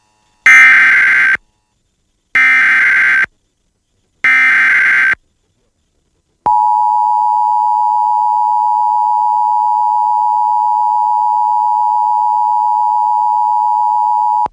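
Emergency Alert System tones: three bursts of SAME header data, each about a second long and about two seconds apart, then the steady two-tone attention signal from about six seconds in.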